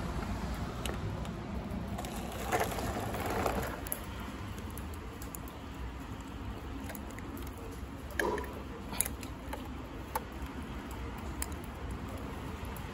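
Scale-model garbage truck and toy bins being handled: a couple of rustling scrapes a few seconds in, then scattered light clicks of small parts, over a steady low background of rain and wind.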